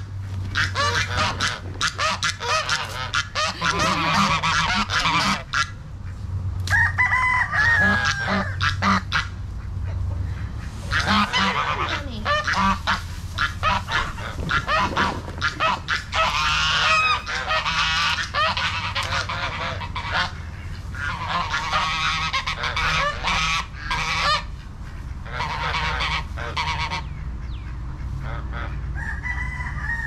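Domestic geese honking over and over, with ducks among them, and many short crackles as the birds move through dry leaf litter.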